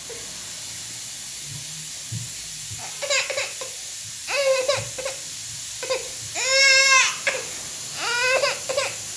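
Six-month-old baby fussing and crying in about five short, high-pitched whiny cries starting about three seconds in, the longest and loudest about two-thirds of the way through.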